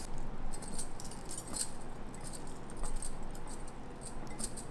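Light, irregular clinks and ticks of hands handling broccoli and cauliflower florets on a steel plate, with gold bangles on the wrist jingling.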